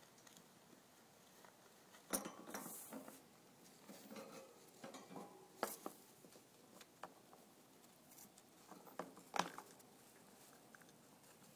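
Faint rustling of paper-towel bedding and scattered small clicks and taps as a hamster moves about its cage and takes a treat, with a louder rustle about two seconds in and a sharp tap later on.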